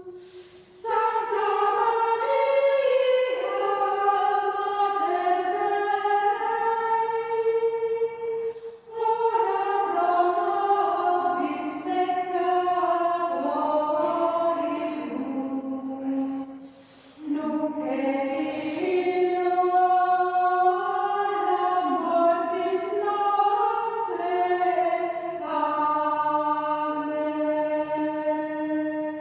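A small vocal ensemble singing unaccompanied in several parts: held chords in three phrases with short pauses between them.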